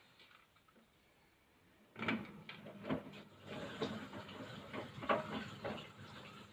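Haier washing machine in its rinse: after about two seconds of quiet the drum turns again and wet laundry tumbles inside it, with irregular thuds and sloshes several times a second.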